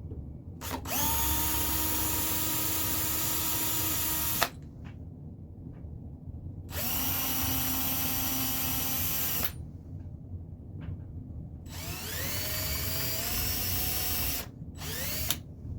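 Cordless drill boring pilot holes into solid wood: three runs of a few seconds each and a short fourth burst near the end. Each run whines up in pitch as the motor spins up, then holds steady until it stops.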